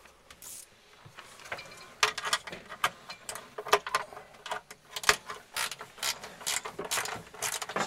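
Irregular mechanical clicking and clatter, several sharp clicks a second, starting about two seconds in.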